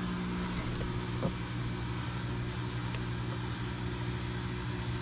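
Steady low electric buzz from the running fog machine feeding the fog chiller. One of its tones drops out about half a second in, and there is a faint tick just after a second.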